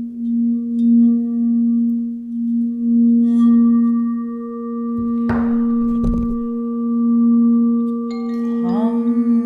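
Clear crystal singing bowl sung by rubbing its rim with a padded mallet: one steady tone that swells and fades in slow waves. A brief rushing noise comes about five seconds in, and a humming voice slides in to meet the bowl's pitch near the end.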